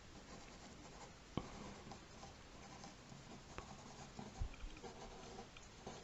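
Faint scratching of a drawing tool sketching on paper, with three light knocks, about one, three and a half and four and a half seconds in.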